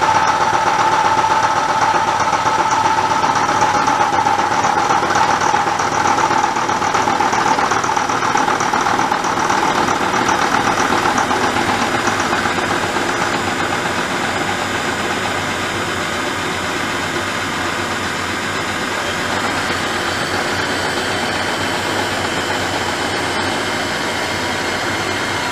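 Milling machine running in low gear, its cutter taking a light roughing cut across a quick-change tool block. A steady whine fades over the first several seconds, and the sound gets slightly quieter about halfway through.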